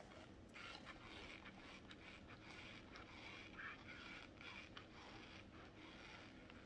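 Near silence: room tone with faint scattered clicks and scrapes.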